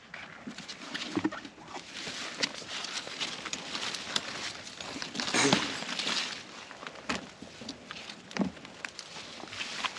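Irregular rustling and crackling of leaves and stems, with a few sharper snaps, as vegetables are picked by hand among cucumber and zucchini vines.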